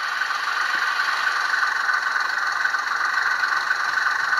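Loksound 5 sound decoder in a model Sentinel diesel shunter playing its recorded engine idling steadily through the model's small speaker, with a steady hiss from the decoder's sanders sound function.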